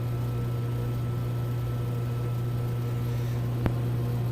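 Sawmill machinery running at a steady low hum, with a single sharp click about three and a half seconds in.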